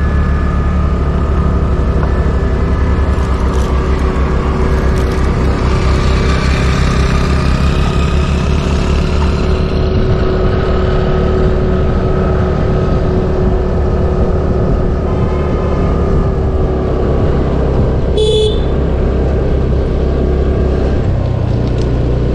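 TVS Jupiter 125 scooter's single-cylinder engine running steadily under way, with heavy wind rumble on the chest-mounted camera's microphone. A short horn toot about eighteen seconds in.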